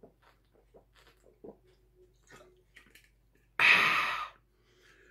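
Quiet gulping and swallowing as a man drinks from a glass bottle, with small wet clicks of the mouth. About three and a half seconds in, a loud breathy exhale lasting under a second as he lowers the bottle.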